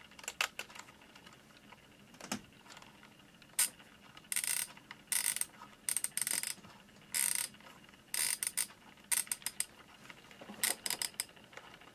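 Setting knob of a JVC Videosphere flip clock being turned by hand: ratcheting clicks from the setting mechanism in short bursts about once a second, with the number flaps turning over as the time advances.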